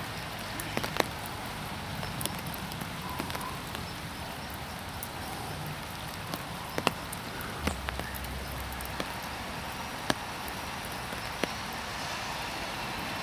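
Steady rain falling, an even hiss with a few sharp ticks scattered through it.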